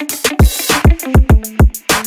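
Background electronic music with a fast beat: deep kick drums and hi-hat ticks over short repeating synth notes.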